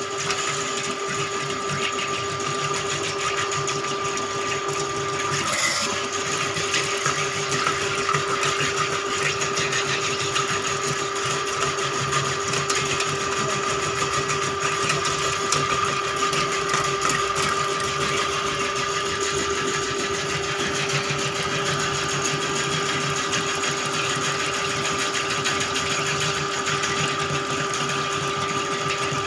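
Electric drain-cleaning machine running steadily with a rapid clicking whirr while it works to clear a clogged drain, with a brief hitch about five seconds in.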